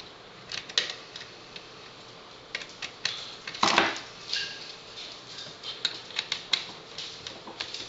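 Phillips screwdriver backing mounting screws out of a sheet-metal optical disc drive casing: an irregular run of small clicks and taps, with a louder knock about three and a half seconds in.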